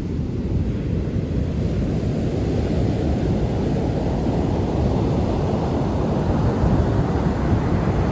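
Wind rumbling on the microphone over the rush of sea surf, the wash swelling over the first few seconds and then holding steady.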